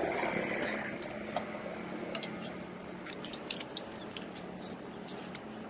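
Water poured from a plastic bottle splashing onto a stone ledge, strongest in the first second, then tailing off into scattered drips and trickles.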